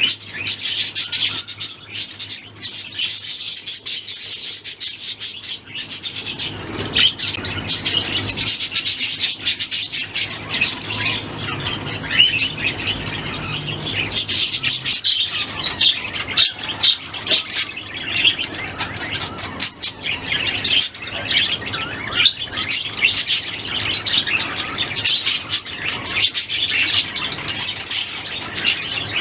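Budgerigars chirping and chattering continuously, a dense stream of overlapping high warbles and squawks with short clicks mixed in.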